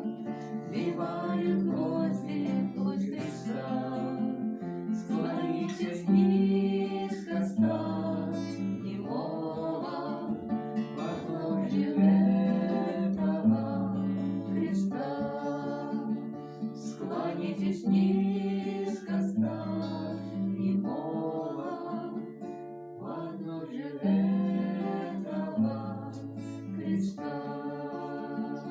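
Acoustic guitar strumming and picking the chords of a slow hymn tune.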